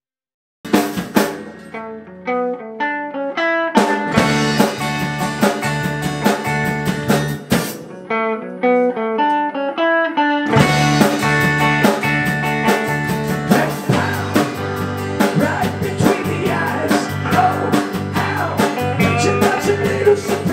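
Rock band playing, with guitars, bass and drum kit. A guitar picks out single notes alone about a second in, the full band with drums comes in near four seconds, drops back to the guitar around eight seconds, and returns about ten seconds in.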